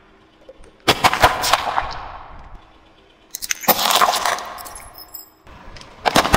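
Car tyre rolling over and crushing hard plastic toys and bottles: three bursts of rapid cracking and crunching, about a second in, again a little past the middle, and again near the end, each fading out over a second or two.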